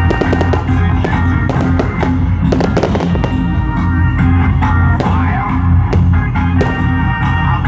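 Fireworks going off in repeated bangs and crackles, heard over loud music with a strong low beat.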